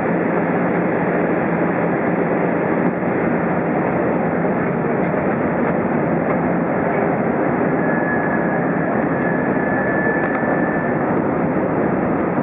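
Steady cabin noise of an Airbus A320 in flight on its descent: an even rush of airflow and jet engine drone heard from inside the cabin. A faint thin whine comes in for a few seconds past the middle.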